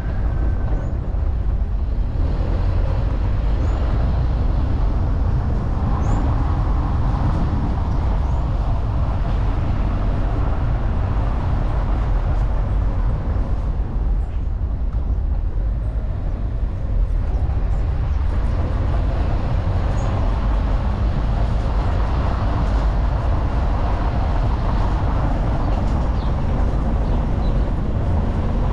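A vehicle driving with a steady low rumble of engine and road noise.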